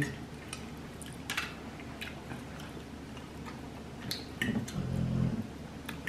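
A person eating: chewing with scattered lip-smacking clicks, and a short closed-mouth "mm" about four and a half seconds in.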